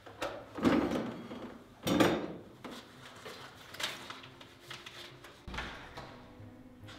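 Objects being handled on a desk: two louder knocks or scuffs about a second and two seconds in, then a few lighter taps.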